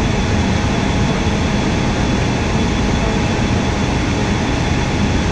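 Steady hum and hiss of a stationary AirTrain JFK car with its onboard equipment running, with a faint steady whine over it.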